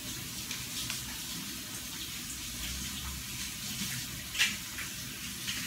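A steady hiss with scattered light clicks of dishes being handled, and one sharper clink about four and a half seconds in.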